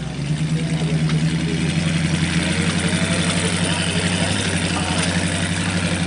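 Engine of a rock-crawling 4x4 truck idling steadily, a little louder from about a third of a second in.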